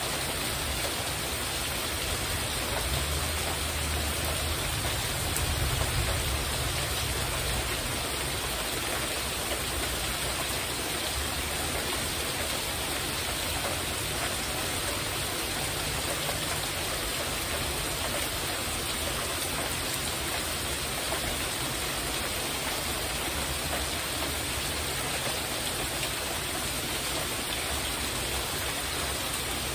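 Heavy rain falling steadily on a porch roof, an even hiss of drops. A low rumble swells and fades a few seconds in.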